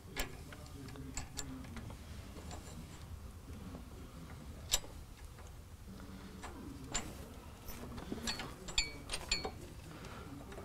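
Small metal clicks and clinks of hand-fitted hardware: a wedge block, lock washer and nut going onto a long steel bolt. The clicks are scattered and faint, with a quicker run of sharper, briefly ringing clinks in the second half.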